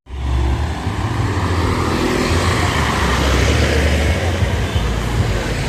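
Loud street noise at a parade, dominated by a deep low rumble.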